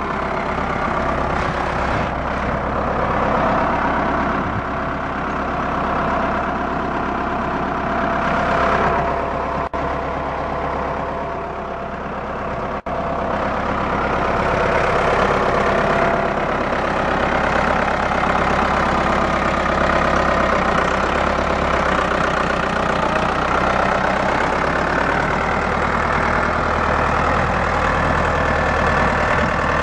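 Ford 6610 tractor's four-cylinder diesel engine running steadily, broken by two very short drops in the sound about 10 and 13 seconds in.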